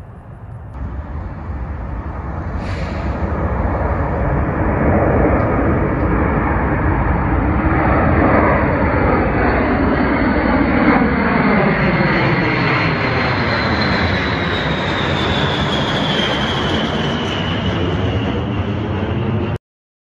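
A B-52 bomber's eight TF33 turbofan jet engines at full power, growing louder as it climbs out and passes overhead. A high engine whine slowly falls in pitch as it goes by. The sound cuts off suddenly near the end.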